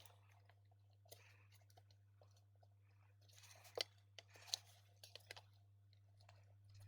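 Faint clicks and light rustling of small plastic mic pack parts being handled and fitted back together, with a couple of sharper clicks about four seconds in.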